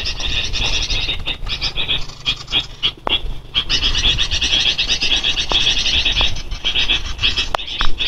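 A dense, high-pitched chorus of rapidly pulsing animal calls that briefly dips about three seconds in, with a few sharp clicks from the camera brushing through mangrove branches.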